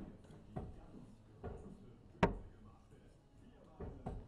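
A steel-tip dart thudding into a Winmau Blade 6 bristle dartboard about two seconds in, among several lighter knocks.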